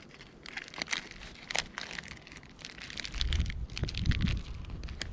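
Close-up handling noise: irregular crinkling and crackling clicks. A low rumble comes in about three seconds in and lasts a second and a half.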